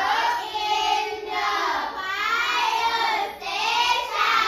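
Child's voice singing in high, drawn-out phrases about a second each, with no accompaniment.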